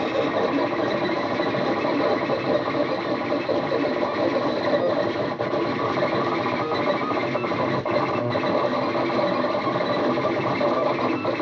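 Stepper motors of a home-built RepStrap 3D printer driving the print head and bed through a fast print at about 200 mm per second. The result is a busy machine whine and buzz whose tones keep shifting with each move.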